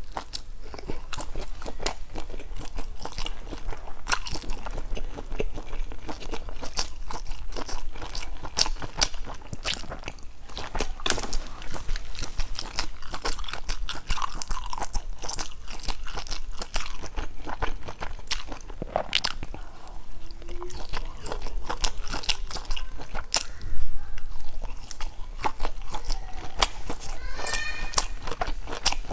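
Crunchy food being bitten and chewed: a dense, irregular run of crisp crunches, with one louder thump about 24 seconds in and a brief higher pitched sound near the end.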